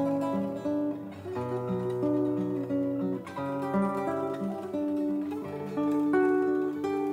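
Solo acoustic guitar music: a plucked melody moving note by note over held low bass notes.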